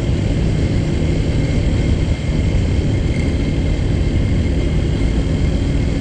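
Royal Enfield GT 650's 648 cc parallel-twin engine and exhaust running steadily while riding at speed, a constant low drone.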